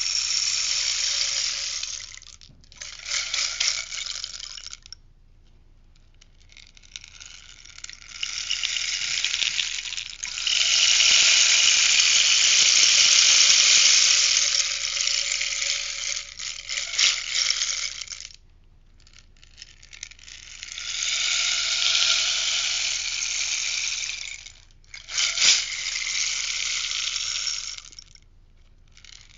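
Rainstick being tipped again and again: each turn sends a rushing cascade of pellets down through the tube that pours for a few seconds, swells and then trails off, with short pauses between turns. The longest pour is in the middle, and a single sharp click comes near the end.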